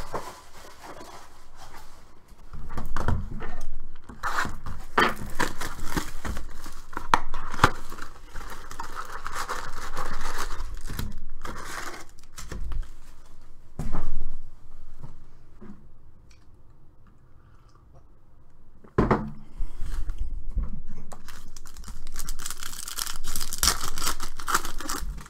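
Cardboard trading-card box being opened and its wrapped card packs handled, with irregular crinkling and rustling. From about three-quarters of the way in, a card pack's wrapper is torn open with loud crinkling.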